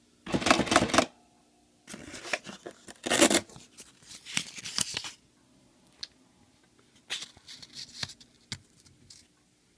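Paper tape from a printing calculator being pulled and torn off in several short rasping strokes, followed by a few light clicks and taps.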